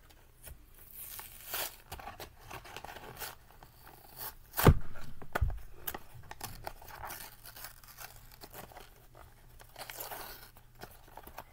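Cardboard and plastic toy packaging being torn open and handled by hand: irregular tearing, crinkling and rustling. A sharp knock, the loudest sound, comes about halfway through, with a duller thump just after.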